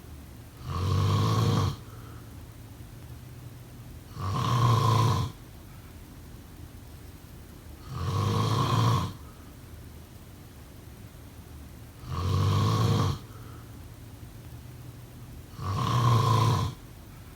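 A person snoring: five snores about a second long each, coming evenly about every four seconds.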